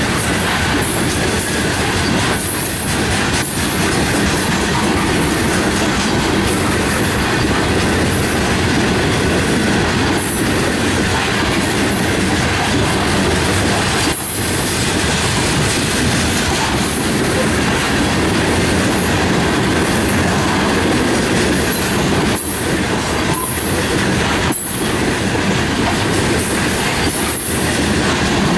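Freight train hopper cars rolling past close by: a steady, loud rumble of steel wheels on rail, with a clack now and then as wheels cross rail joints.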